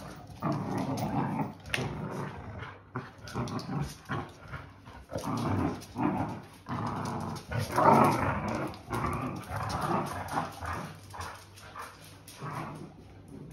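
Dogs growling in play while tugging on a rope toy, in uneven bursts that peak about two-thirds of the way through.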